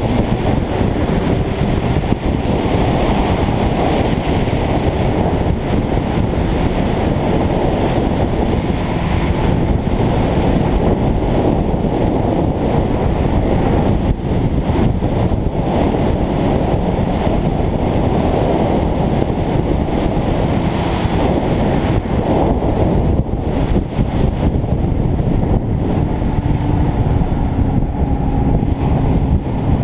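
Steady roar of wind buffeting an action camera's microphone on a vehicle moving at road speed.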